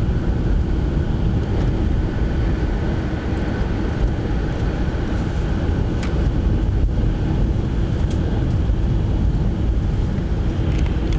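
Steady low rumble of a bullet train running at speed, heard from inside the passenger cabin, with a few faint ticks.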